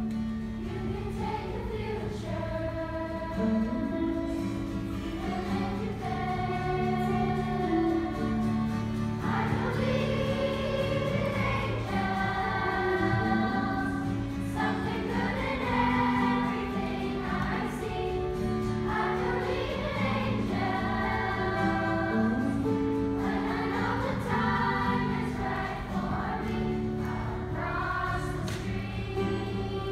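Children's choir singing in unison, with long held notes, accompanied by guitar.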